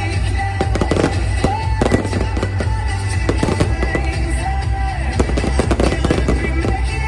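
Aerial fireworks and firecrackers going off in a dense, continuous barrage of sharp bangs and crackles, with music playing underneath.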